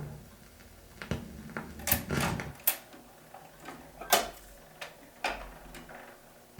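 Tap-dance steps on a hard floor in a break in the orchestra: sharp, syncopated taps at irregular spacing, heard off an old 78 rpm record.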